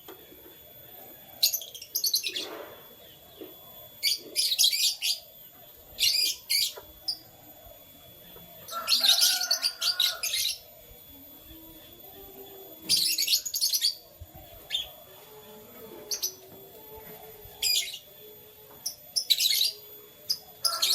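Canaries chirping in short bursts of rapid, high notes, a new burst every two to three seconds.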